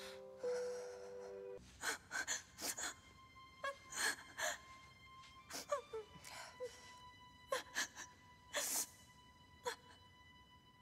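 A held music chord stops about a second and a half in. A woman's short, irregular gasps and sharp breaths follow, some with a brief falling whimper, over a faint steady drone.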